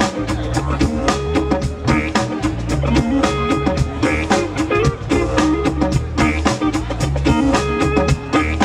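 Live rock-jam band playing: a didgeridoo droning low under electric guitars and a drum kit keeping a steady beat.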